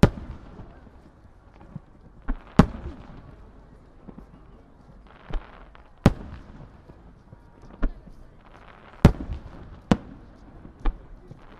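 Aerial firework shells bursting in a starmine display: about nine sharp booms at uneven intervals of one to three seconds, each followed by a short rolling echo.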